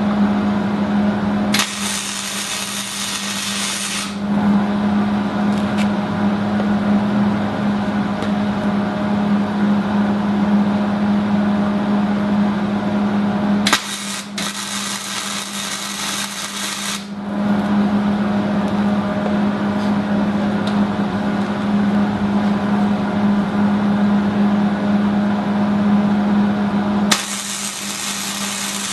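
Wire-feed welder at maximum heat setting, its arc crackling and buzzing with a steady hum over long stretches. The sound turns to a brief hiss three times, about two seconds in, midway and near the end.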